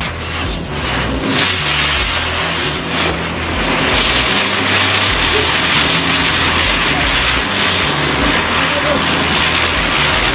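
Lotus wheel ground-spinner firework spinning and spraying sparks with a loud, steady hiss that grows stronger about four seconds in. Low bass notes that step in pitch run underneath.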